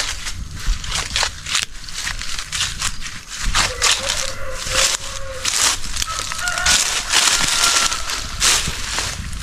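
Dry leaves and twigs crunching and crackling in a rapid, irregular series, as of someone moving through dry undergrowth.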